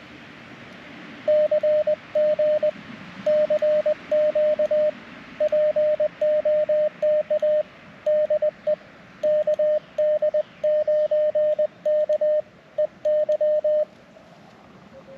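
Morse code sidetone from a portable amateur radio: a single mid-pitched tone keyed on and off in dots and dashes as CW is sent, over a steady hiss of band noise. It starts about a second in and stops near the end.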